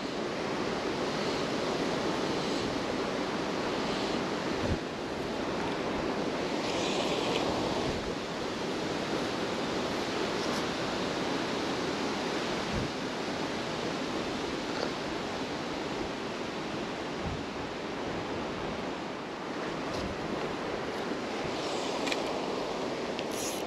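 Steady rushing of a fast-flowing river, with some wind on the microphone.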